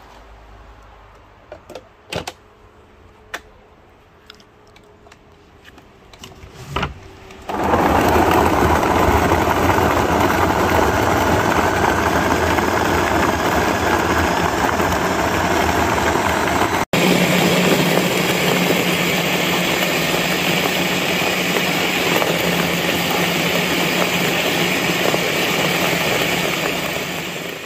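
Ninja countertop blender running, blending coconut chunks with water into coconut milk. A few clicks and knocks of handling come first; the motor starts loud about seven seconds in and runs steadily, cutting out for an instant partway through.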